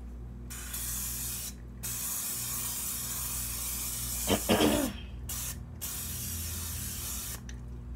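Aerosol cooking spray can hissing in long sprays, broken by short pauses about a second and a half in and around five seconds in, as a pan is coated with oil. A brief voice sound comes about four and a half seconds in.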